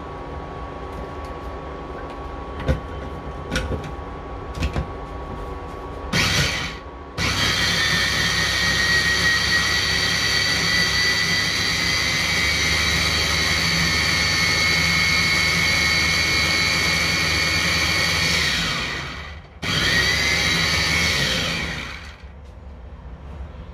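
Joyoung electric mini food chopper grinding a spice mixture in its glass bowl: a few clicks as it is set up, a short burst, then one long run of about twelve seconds with a whine that rises slightly in pitch, a brief pause and a second short run before it stops.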